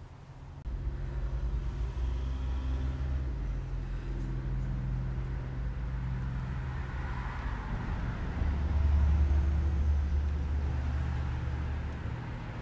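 A motor vehicle's engine rumbling low and steady, starting about a second in, loudest about two-thirds of the way through, then easing off.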